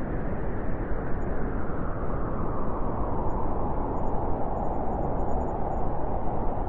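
Blizzard wind blowing hard and steadily, a dense rushing noise with a howling note that grows stronger in the second half.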